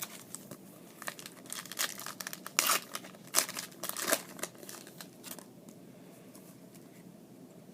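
Foil trading-card pack wrapper crinkling and tearing in quick crackly bursts as it is opened and handled, dying away after about five seconds.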